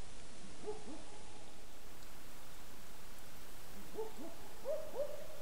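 A night bird's hooting calls: a pair of short hoots, the second lower, under a second in, another such pair about four seconds in, and two higher notes near the end, over a steady hiss.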